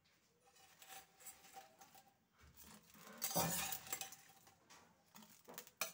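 Metal slotted spoon clinking against a steel pot as fried fritters are slid off it into sugar syrup. A few light clinks and soft knocks, the loudest about three and a half seconds in, with a sharp click near the end.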